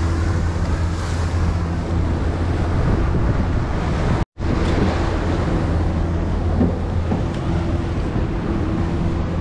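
Boat underway at speed: a steady engine drone under wind buffeting the microphone and water rushing along the hull. The sound cuts out completely for a moment about four seconds in.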